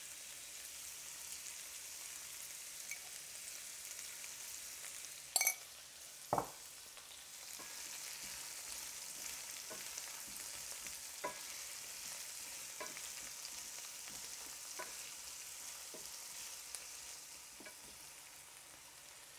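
Carrots and onions sizzling in hot oil in a frying pan: a steady hiss with scattered small ticks, and a wooden spoon stirring through the vegetables. A couple of louder knocks come about five and six seconds in.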